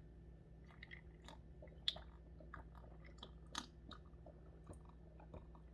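Faint close-up chewing: soft, irregular mouth clicks and smacks of someone eating.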